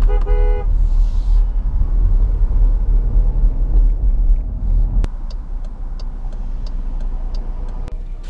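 Engine and road rumble heard inside the cabin of a moving Dodge Durango SUV, with a short pitched tone at the very start. About five seconds in the rumble drops away, leaving a faint tick about every 0.7 s.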